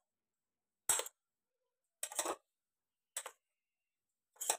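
A spoon clinking and scraping against a stainless steel spice box as spoonfuls of red chilli powder are scooped out: about four short sounds, roughly a second apart.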